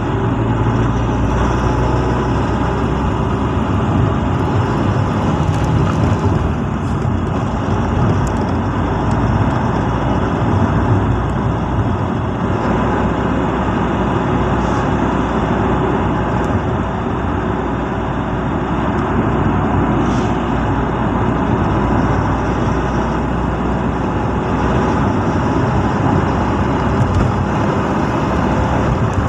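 Steady engine and road noise of a moving vehicle, continuous and unchanging.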